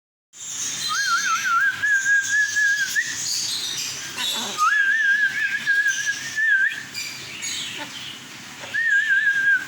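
Albino cockatiel whistling three phrases, each a wavering warble that settles into a held note and ends with a short upward flick. Bird chirping runs behind.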